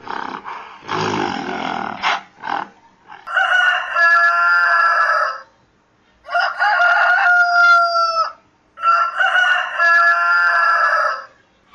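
Short, rough gorilla grunts with a couple of sharp knocks, then a rooster crowing three times, each crow about two seconds long.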